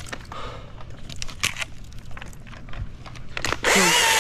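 Light clicks and crinkly rustling, then about three and a half seconds in an Echo chainsaw is throttled up and runs loud, its engine pitch wavering up and down.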